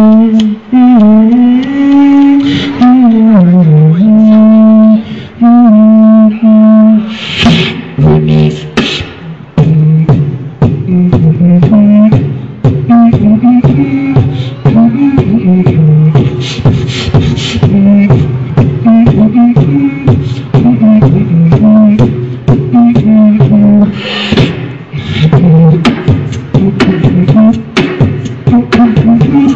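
Live beatboxing. For the first seven seconds or so a held, bending hummed tone like a brass line, then a fast vocal drum beat of sharp clicks and hissy cymbal-like bursts over a hummed bass melody.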